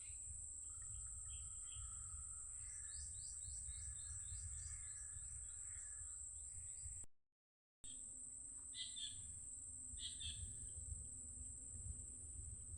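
Birds chirping and trilling in a run of quick calls over a steady high-pitched drone and a low rumble. The sound cuts out completely for under a second about seven seconds in, then two more short bird calls follow.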